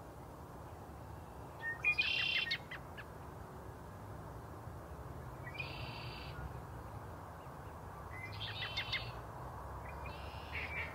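A wild bird calling in short bursts, four times a few seconds apart, each call a stack of high tones lasting about half a second. A steady low rumble runs underneath.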